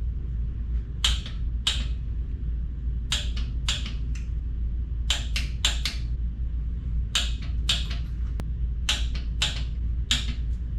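Torque wrench working the cylinder-head bolts during the 51 ft-lb pass: a series of short, sharp clicks, mostly in twos and threes, over a steady low hum.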